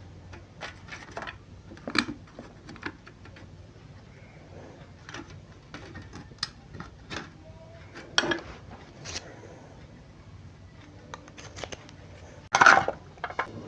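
Scattered small metallic clicks and clinks of screws and a screwdriver against the metal housing of an LED flood light as it is screwed back together, with a louder clatter near the end.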